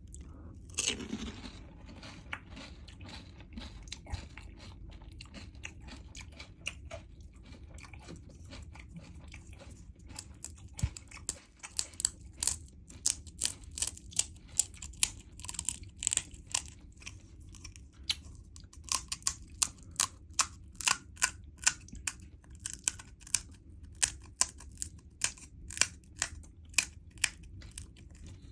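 Close-up chewing of crisp pani puri shells, the crunches coming in a regular run of about two a second from about halfway through.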